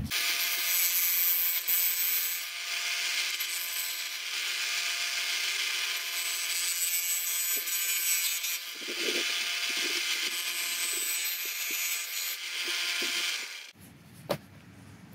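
Benchtop belt-and-disc sander running, its motor giving a steady whine under the hiss of a PVC board being ground against the sanding disc to put a taper on its edge. The sound cuts off near the end.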